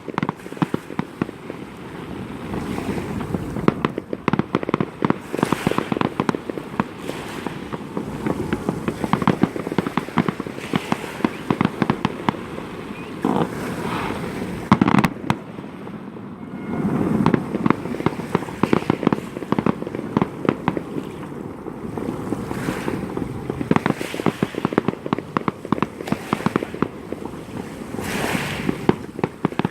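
Fireworks display: a dense, continuous rattle of rapid bangs and crackles, with a few louder single blasts around the middle.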